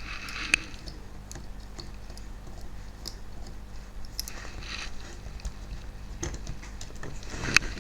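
Small clicks, taps and light scraping from hands working on the parts of a model locomotive being taken apart. There is one sharp click about half a second in and a quick run of clicks near the end.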